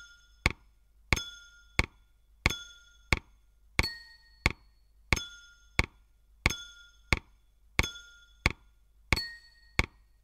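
Metal teaspoon striking two water-filled drinking glasses in turn, each glass ringing at its own pitch, with one note about every 1.3 seconds. Between the notes come short dry knocks of a wooden spoon on an upturned plastic bowl, keeping an even beat.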